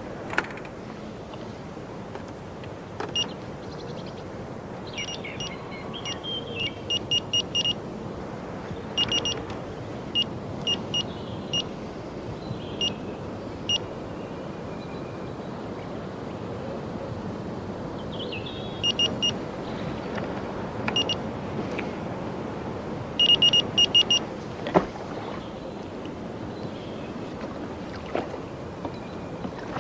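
Optonic electronic bite alarms giving short high bleeps, in quick runs of several a second at irregular intervals, each run marking fishing line drawn through the alarm. Under them a steady rush of wind and water, with a sharp knock near the end.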